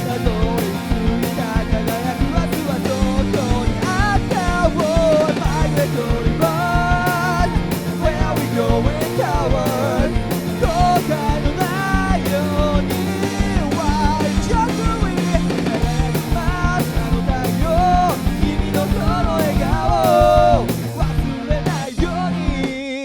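Rock band music: drums keeping a steady beat under bass and a lead melody that bends and slides in pitch.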